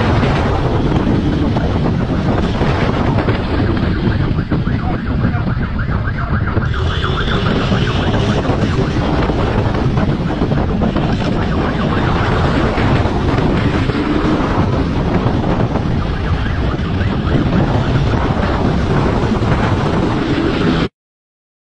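Wind rushing over the microphone mixed with a motorcycle engine running while riding at speed. The sound is steady and cuts off suddenly near the end.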